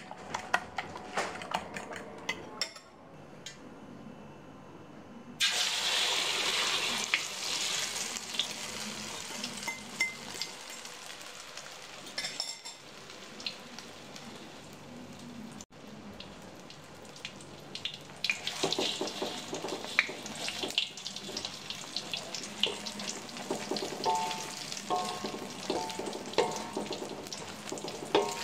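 A fork clinking quickly against a ceramic bowl as egg is beaten. About five seconds in, a sudden loud sizzle starts as the egg meets hot oil in a wok, and the egg keeps frying. In the latter half, a wooden spatula scrapes and knocks against the wok over the frying.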